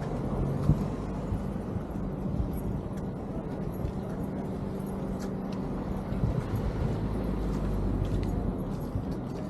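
Outdoor ambience: a steady low rumble with a faint engine-like hum and a few light clicks.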